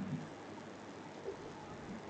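Faint room tone: a steady low hiss in a pause of the narration, with a brief faint low murmur at the very start.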